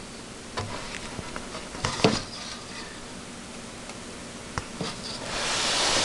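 Handling noise inside an open desktop computer case: a few scattered light clicks and knocks over a steady hiss, then a rustle that swells near the end.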